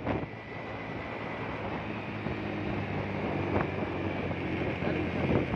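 Motorcycle engine running steadily as the bike is ridden, with wind rushing over the microphone.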